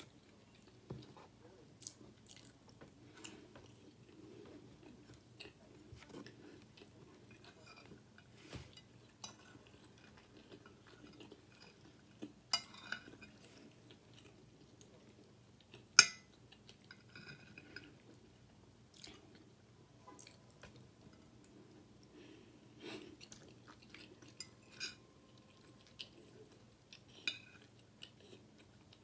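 Close-up chewing and mouth sounds of someone eating fried chicken chunks and rice, with scattered sharp clicks of a metal fork against a plate. The loudest click comes about halfway through.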